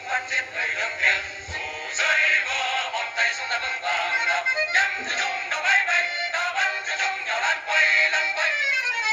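Music: an ensemble's sung Vietnamese song with accompaniment, with a falling glide in pitch near the end.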